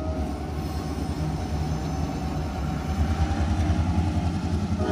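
Kansas City Southern streamlined diesel locomotives passing close by, a steady low engine rumble mixed with wheel-on-rail noise.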